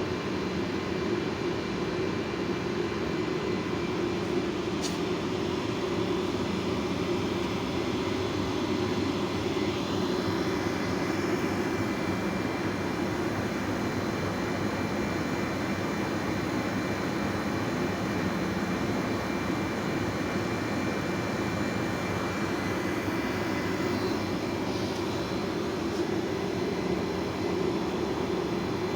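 Window air conditioner running steadily while being charged with R-22 refrigerant: a continuous fan and compressor drone. A faint high whine joins for a stretch in the middle.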